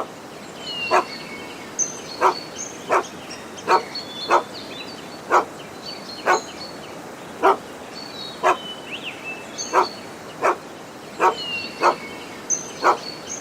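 A dog barking repeatedly, single sharp barks about once a second at uneven intervals. Birds chirp high-pitched in the background throughout.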